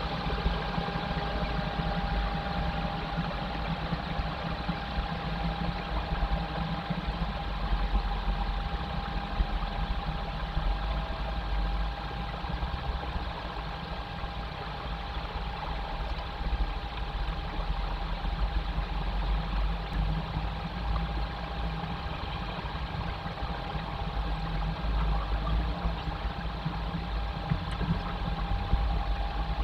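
Steady low rumble and hiss with a faint, constant hum: outdoor background noise picked up by a nest-box webcam microphone.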